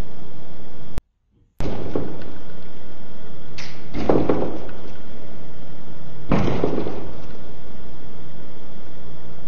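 Heavy, steady camcorder tape hiss with a faint low hum. It drops out for about half a second near the one-second mark, then comes back, and three short, rough bursts of noise come about two, four and six and a half seconds in.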